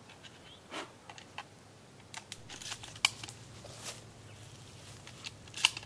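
Small clicks and rustles of shotgun shells being pushed into the tube magazine of a Benelli Super 90 semi-automatic 12-gauge, with two sharper clicks about three seconds in and near the end.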